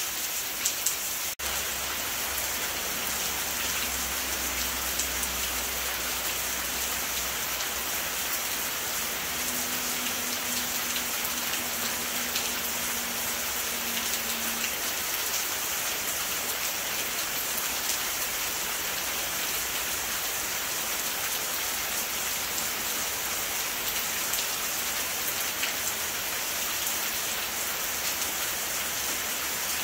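Steady rain falling, an even hiss with scattered drop ticks. A brief dropout comes about a second and a half in, and a faint low drone sits underneath during the first half.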